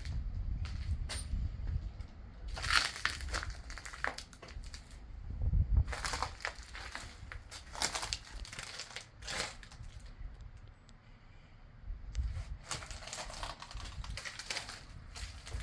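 Footsteps crunching on grit and debris on a floor, in three spells of walking with quieter pauses between, over a low rumble.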